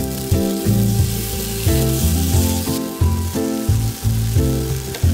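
Diced bacon and onion sizzling as they fry in a nonstick pan while being stirred with a wooden spatula; the sizzle grows louder for about a second near the middle. Background music with a steady beat plays throughout.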